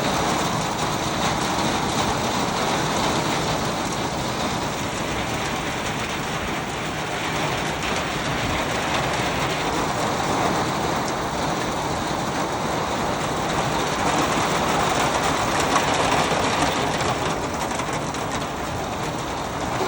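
Heavy rain falling in a steady, even hiss that swells a little near the middle and again toward the end.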